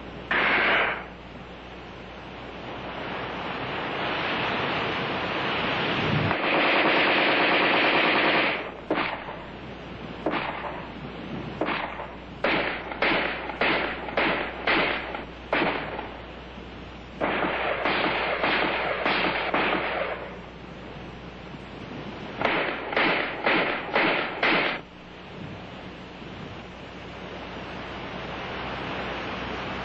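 AR-10 rifle firing 7.62 mm NATO rounds: two automatic bursts of a couple of seconds each, about six and seventeen seconds in, with strings of quick single shots between and after them, over a steady hiss.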